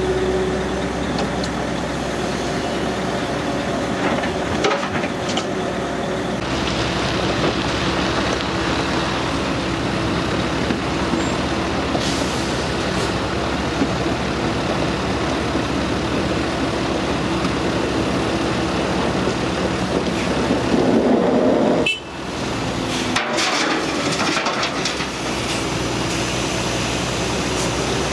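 Cat 312DL excavator's diesel engine and hydraulics working steadily while it swings and dumps buckets of dirt, with the dump truck's engine running alongside. Near the end there are a few knocks and rattles as dirt drops into the truck's steel tipper body.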